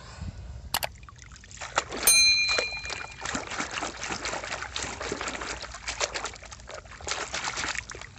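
Water splashing and sloshing in a plastic tub as a toy is scrubbed by hand under the water. About two seconds in there is a click and a short ringing ding, the sound effect of an on-screen subscribe button.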